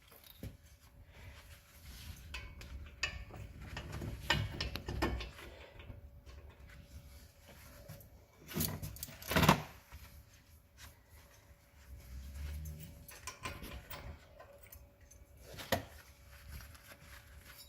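Scattered metallic clicks, taps and scrapes of brake caliper parts being handled as the caliper pins are cleaned up and the pads fitted, with a louder pair of knocks about nine seconds in.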